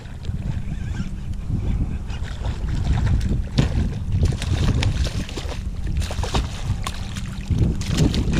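Wind buffeting the microphone, with the splashing of a hooked redfish thrashing at the surface beside a kayak; the sharp splashes start about three seconds in and keep coming.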